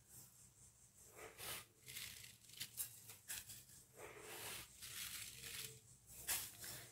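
Spoonfuls of sugar being scooped and tipped from a steel spoon into a pot of milk: a few faint, soft granular rustles.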